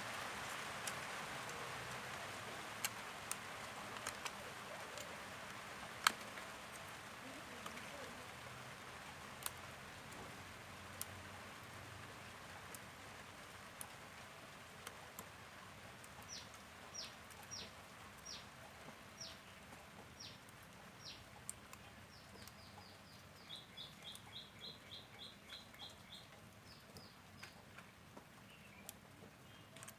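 A bird calls: from about halfway, a series of short, high falling chirps at roughly one or two a second, then a quick rapid run of notes near the end. Scattered light clicks and taps sound throughout, over a soft hiss that fades early on.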